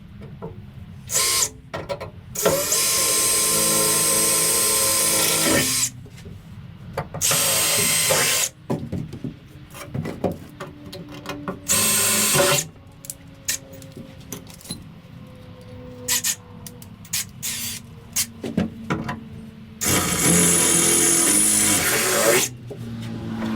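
Power drill running in several bursts of one to three seconds each, with scattered clicks and knocks between the runs.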